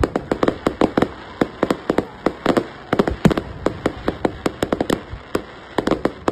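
Aerial fireworks going off in a rapid, irregular string of sharp bangs and pops, several a second, with a brief pause about five and a half seconds in.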